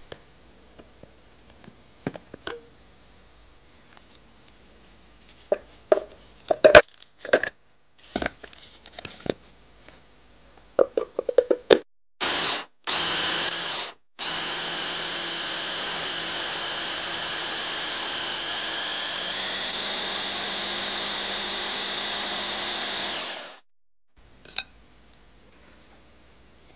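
Smeg hand blender with its chopper attachment grinding chunks of pear, onion and radish into pulp: two short pulses, then about nine seconds of steady running that stops suddenly. Before the motor starts there are scattered light knocks and clicks.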